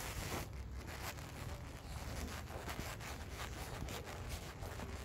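Footsteps on concrete mixed with rubbing and rustling, over a low steady rumble.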